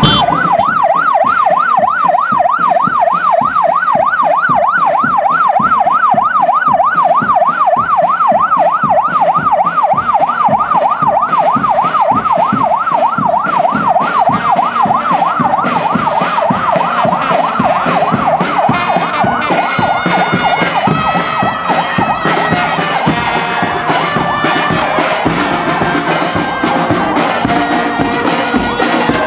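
A siren warbles fast, rising and falling a few times a second, over a marching band's steady drumbeat. The siren fades about two-thirds of the way through as the brass band's horns come in.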